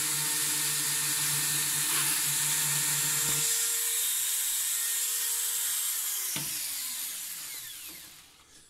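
Cheap handheld drill spinning a plastic rod against a plastic button for spin welding: a steady high whine with a lower buzz that stops about three and a half seconds in. About six seconds in there is a click, and the motor's pitch falls as it winds down.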